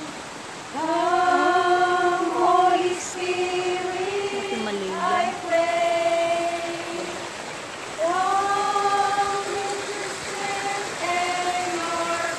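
Voices singing a slow song together, holding long notes in phrases of a second or two with short breaks between them.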